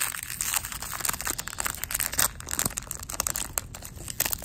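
Paper wrapper of a 1992 Bowman baseball card pack being torn open and peeled back by hand. It makes a continuous run of small, sharp crackles and crinkles.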